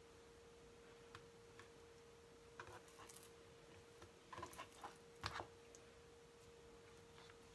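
Near silence with a few faint taps and clicks of a chef's knife and hands on a plastic cutting board as a raw chicken breast is cut open and pressed flat, the loudest about five seconds in. A faint steady hum runs underneath.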